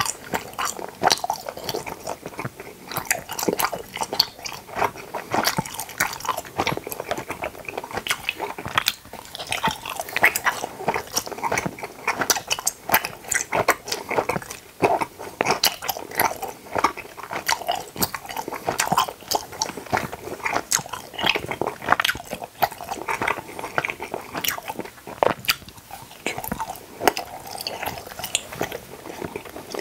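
Close-miked chewing of tooth-shaped gummy jelly candies: a steady run of quick mouth clicks and smacks as the gummies are bitten and chewed.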